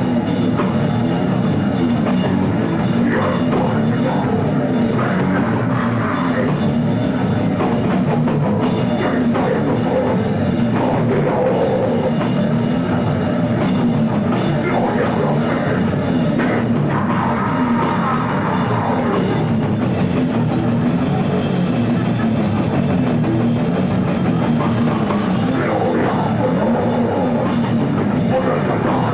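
Heavy rock band playing live, with a drum kit driving the song at a loud, even level.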